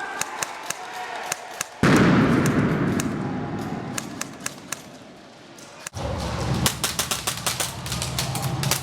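Airsoft guns firing: sharp cracking shots, single and in quick strings. A loud rushing noise cuts in about two seconds in and fades away over the next few seconds.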